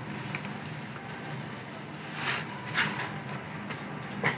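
Bubble wrap and plastic packaging crinkling as it is handled, in short rustling bursts about two seconds in, again a moment later, and near the end, over a steady low hum.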